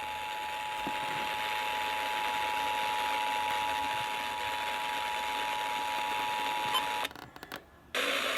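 Emergency Alert System attention signal, the steady dual-tone alert of two tones near 850 and 960 Hz sounding together over radio hiss, opening a new emergency alert. It holds for about seven seconds and cuts off abruptly, then the audio nearly drops out for about a second before the hiss returns.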